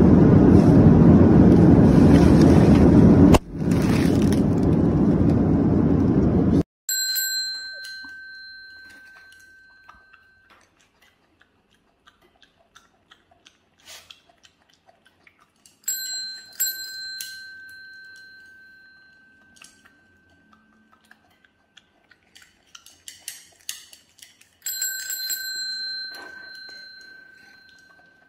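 A loud rushing noise that cuts off suddenly, then a small metal bell dinging four times, two of the dings close together, each ringing out and fading over a few seconds, with light clicks and taps between.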